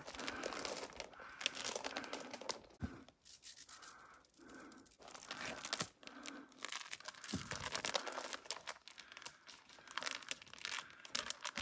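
Irregular rustling and scuffing from a climber's feet on stone steps and clothing or gear rubbing as he climbs.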